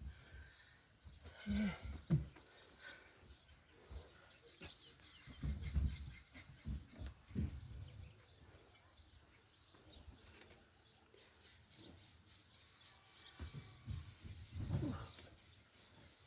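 Faint bird chirps, with scattered low thumps and knocks in three clusters: near the start, in the middle, and near the end.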